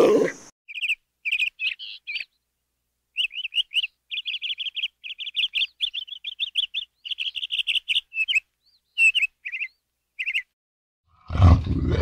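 A bird chirping: short, high chirps, scattered at first, then a fast run of them for several seconds, then a few more. Near the end a loud, low roar-like rumble begins.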